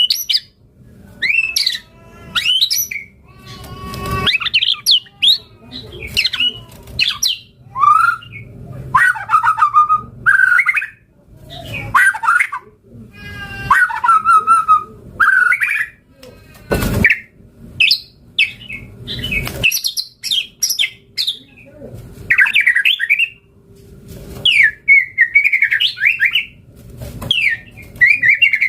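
White-rumped shama singing vigorously: a long run of varied short phrases, with clear whistled sweeps, harsh chattering notes and fast trills, separated by brief pauses.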